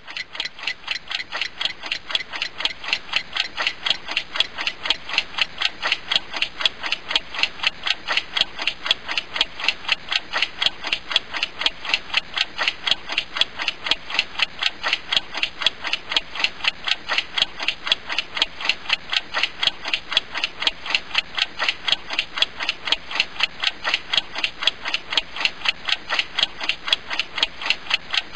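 Clock ticking: quick, even ticks in a steady rhythm, growing a little louder over the first few seconds.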